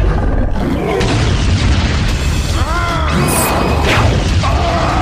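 Loud action-style soundtrack of music with a deep booming rumble underneath, warbling gliding effect sounds about two and a half seconds in, and a falling sweep near four seconds.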